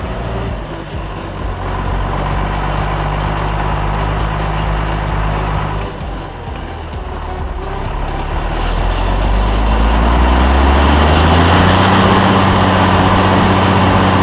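International 1455 tractor's six-cylinder diesel running under load while working the field. It dips briefly about six seconds in, then rises in pitch and holds steady at the higher speed.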